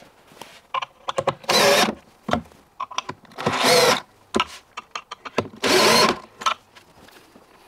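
Cordless drill-driver driving screws into a cabinet panel in three short bursts, about two seconds apart. Small clicks and knocks come between the bursts.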